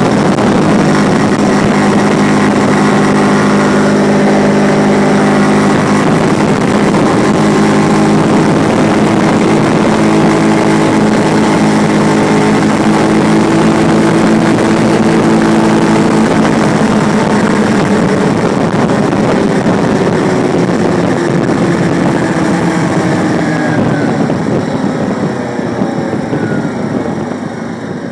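Quad (ATV) engine running steadily at road speed. Over the last several seconds its pitch falls and it gets quieter as the quad slows.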